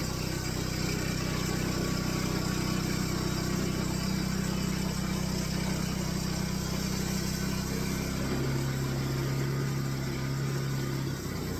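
Engine of a homemade sawmill running steadily. Its tone shifts about eight seconds in.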